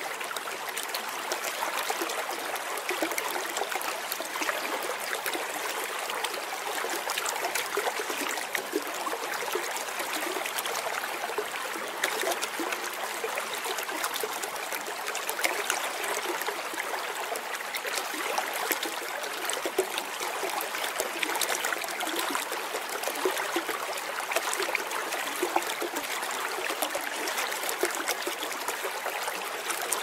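Running water flowing and trickling steadily, a continuous splashing rush dotted with many small, quick splashes.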